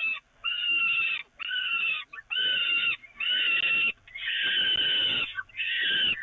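Peregrine falcon chicks giving harsh, wheezy begging calls in the nest box at feeding time. About six screeching calls, each under a second, come one after another with short gaps; one call about four seconds in is held longer.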